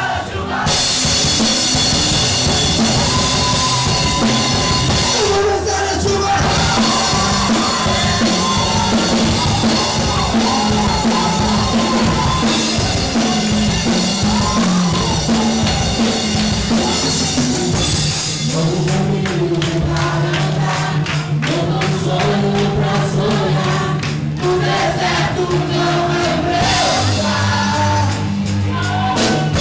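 Music: a song with singing over a drum kit, and the drumming gets busier about two-thirds of the way through.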